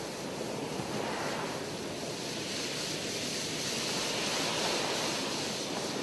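Ocean surf: a steady wash of breaking waves that swells a little partway through.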